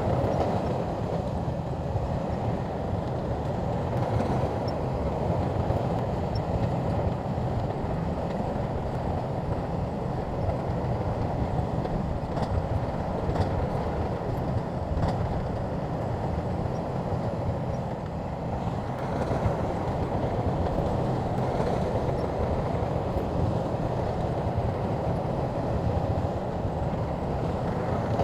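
Shantui crawler bulldozer working, its diesel engine and tracks making a steady heavy rumble with a few faint clicks.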